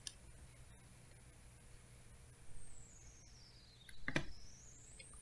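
A few faint clicks from a computer mouse and its scroll wheel as a document page is scrolled, the loudest about four seconds in, over a low steady room hum.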